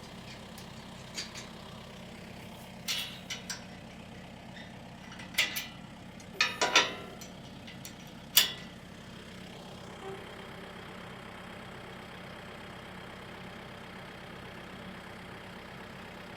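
Truck engine idling steadily, with a series of sharp knocks and bangs in the middle, the loudest a cluster about six and a half seconds in and a single one near eight and a half seconds.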